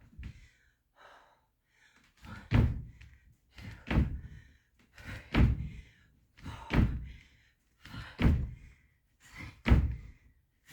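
Feet landing from repeated jumps on a floor: six heavy thuds about a second and a half apart, starting about two seconds in, each with a lighter sound just before it.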